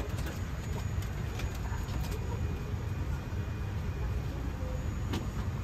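Steady low rumble and hiss of a Boeing 787-10 airliner's cabin air and ventilation, with a few faint light clicks.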